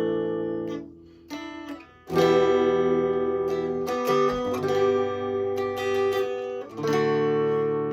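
Fender Stratocaster electric guitar strumming chords and letting them ring. A loud new chord comes in about two seconds in and another near the end.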